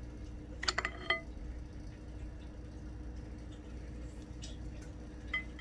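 Light metallic clinks of the steel collet-closer yoke on a Tree milling machine's spindle nose as it is handled and fitted: a few short ringing clicks about a second in and one more near the end, over a steady low hum.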